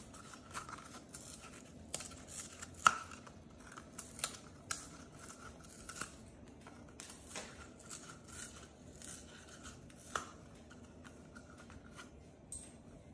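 Moluccan cockatoo biting and tearing at a cardboard toilet-paper tube with its beak: irregular crunches and rips of cardboard, the loudest snap about three seconds in.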